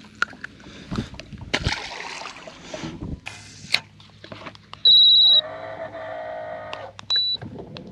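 Scattered handling knocks and rustles on the boat, then a sharp, steady high-pitched electronic beep about five seconds in. A steady mechanical whine follows for about a second and a half, then a second short beep near the end.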